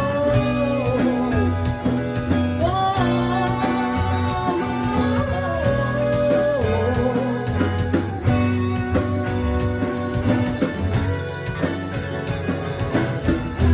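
Live band music with no sung words: guitar and bass holding chords while a melody line slides and bends above them, an instrumental passage between verses of a song.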